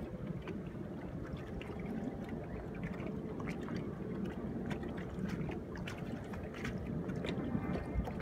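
Water lapping against the hull of a small boat, with scattered small splashes and ticks over a steady low rumble of wind on the microphone.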